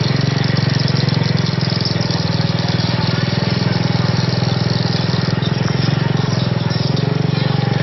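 A small motorbike engine running steadily at low revs close by, with a fast, even putter.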